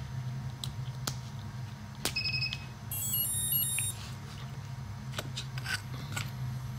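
Brushless motor sounding a YEP electronic speed controller's power-up beeps as the battery is plugged in. A few sharp clicks of the connector going together come first, then a short high two-note beep about two seconds in, and a quick run of stepped tones a second later, which signals that the ESC has armed with the programming card attached.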